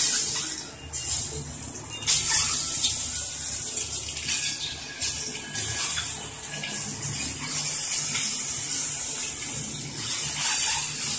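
Peeled boiled eggs sizzling in hot oil in a wok. It is a steady high hiss that breaks off briefly a few times and flares up again as more eggs go into the pan.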